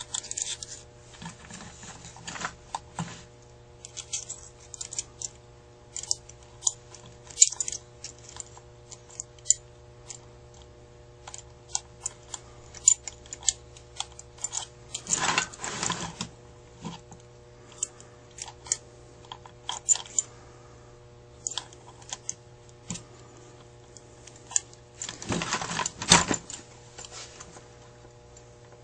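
Small metal linkage parts clicking and rattling against a Carter AFB carburetor body as it is handled and the linkage fitted, with two louder scraping rustles, one about halfway through and one near the end. A steady low hum runs underneath.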